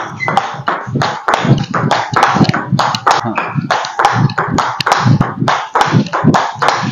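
Table tennis balls clicking off paddles and the table in quick succession, several hits a second, during a fast multi-ball feeding drill with the defender blocking each ball back.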